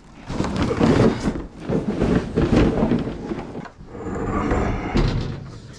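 Stored household goods being shifted and dragged by hand: a continuous jumble of scraping, knocking and rumbling, with a sharp knock about five seconds in.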